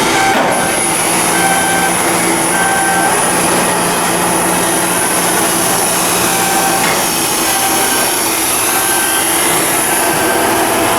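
Steady loud shipyard machinery noise with a high thin whine, broken by short repeated beeps.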